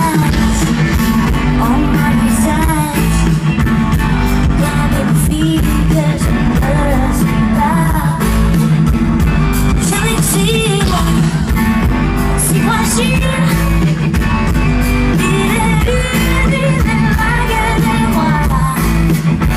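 A live band with guitars, keyboards and drums playing a song while a woman sings, heard loud through a festival PA from within the crowd.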